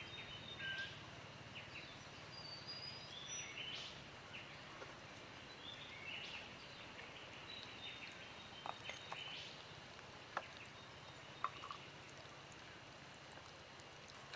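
Forest birds calling in short, high whistled chirps over a steady background hiss. A few sharp clicks come in the second half.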